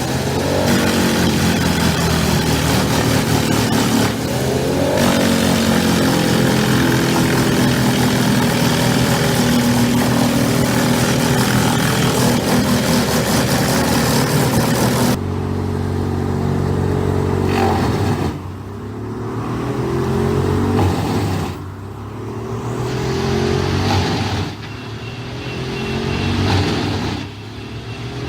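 Industrial wood chipper running at full power, a loud grinding and shredding roar over its diesel engine. About halfway through the shredding noise stops abruptly. The engine is then heard alone, its pitch dipping and climbing back several times, about every three seconds.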